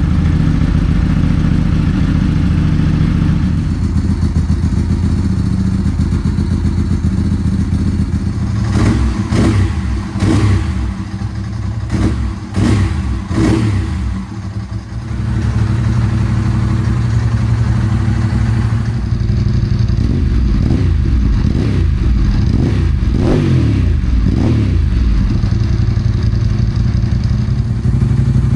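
1995 Ducati 748SP's 90-degree V-twin engine running just after a cold start, settling at idle, with the throttle blipped several times in two spells, near the middle and again later. It runs cleanly, without the hiccup misfire at idle it had been suffering from.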